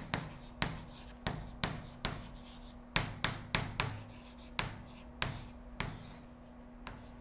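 A marker writing on a board: a quick, irregular run of taps and short scratches as a word is written out, stopping about six seconds in.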